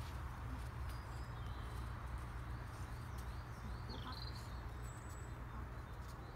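Faint birdsong, short chirping calls scattered throughout, over a steady low rumble.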